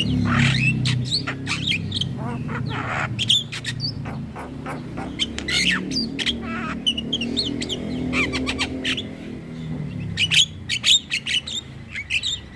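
Javan mynas (jalak kebo) chattering: a rapid, busy string of harsh squawks and short sweeping whistles, with a burst of louder sharp calls near the end.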